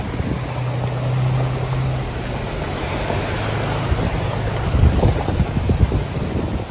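Rushing water of a rain-swollen creek in flood, with wind buffeting the microphone. A steady low hum runs under it through the first half.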